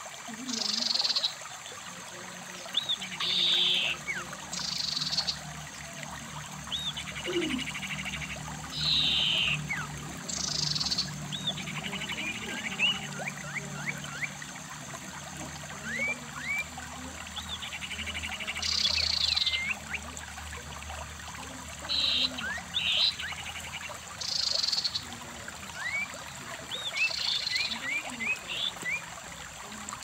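Shallow stream running over rocks, with birds chirping above it: short buzzy calls repeating every one to two seconds and many thin, quick rising chirps.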